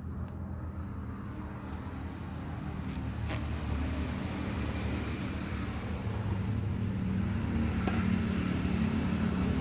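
A motor vehicle's engine running with a steady low rumble that slowly grows louder, with a couple of light clicks.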